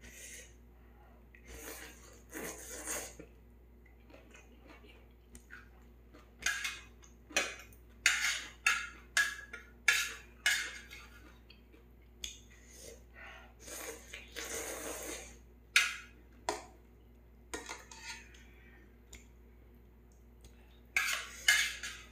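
Metal utensil clinking and scraping against a metal plate and pot while noodles are served and eaten. The clinks are sharp and irregular, with a few longer scrapes.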